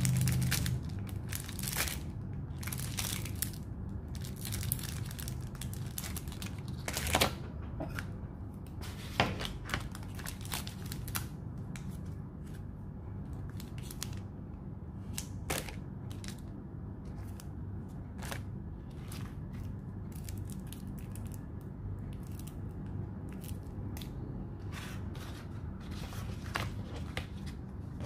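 Cellophane and plastic packaging on stationery packs crinkling and rustling as they are handled, in irregular bursts. Sharper crackles come about 7 and 9 seconds in, over a steady low hum.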